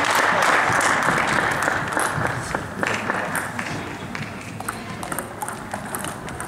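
Table tennis hall din: a dense clatter of celluloid balls striking tables and bats, mixed with crowd noise. It thins out after about two seconds, leaving separate sharp ball clicks as a rally is played.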